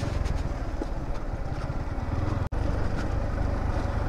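Motorcycle engine running steadily at low revs, a fast even pulsing rumble, with the sound cutting out for an instant about two and a half seconds in.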